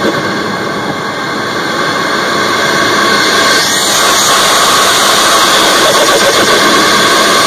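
Intake and turbo sound of a MK3 Ford Focus ST's stock-turbo 2.0 EcoBoost four-cylinder, heard from inside the air box: a dense, continuous rush with steady high tones. It drops in level over the first second or so, then builds back up and holds steady.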